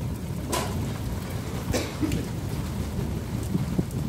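Thunderstorm with rain: a steady low rumble, with two sharp taps about a second apart, the first half a second in.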